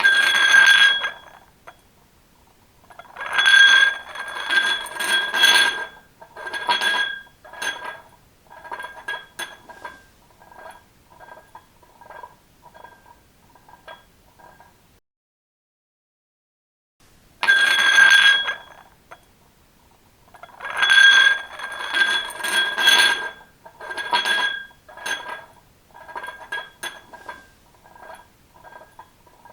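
A small glass rolling and clattering across a tiled floor, its rim clinking on the tiles with a bright glassy ring. The clinks thin out and fade as it rolls to a stop, then the same roll is heard a second time.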